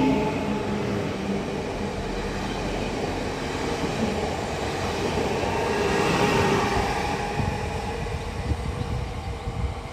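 Electric multiple unit of class 48WE pulling out of the station, its electric drive giving steady tones over the rumble of wheels on the rails as the carriages roll past. The sound swells about six seconds in and then fades.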